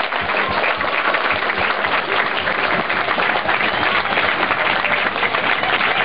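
Football crowd in the stands applauding, a dense steady clatter of many hands clapping.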